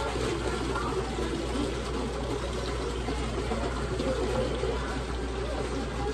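Liquid pouring steadily from a plastic gallon jug.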